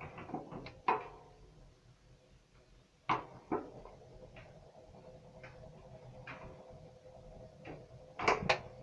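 Homemade steel sauna stove burning, with irregular sharp knocks and clicks, a cluster of the loudest near the end, over a faint steady hum.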